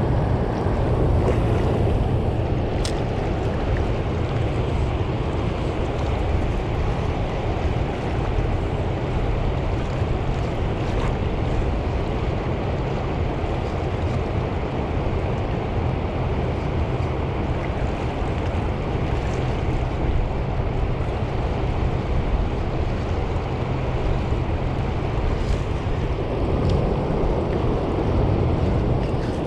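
Steady rush of water pouring through a dam's open floodgates and churning the tailwater below, with wind buffeting the microphone.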